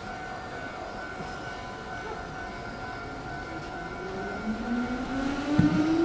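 Hankyu electric train at the platform with a steady electrical hum. About four and a half seconds in, a motor whine starts and rises smoothly in pitch like a siren, the sound of an electric train's traction motors taking power and pulling away. There is a single clunk near the end.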